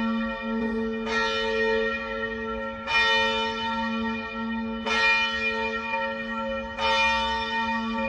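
A large bell tolling slowly, struck four times about two seconds apart, each stroke ringing on into the next.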